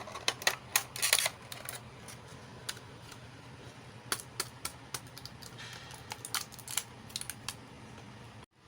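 Small plastic toy pieces and packaging being handled, making a run of sharp clicks and taps, thickest in the first second or so and scattered after, with a brief rustle partway through.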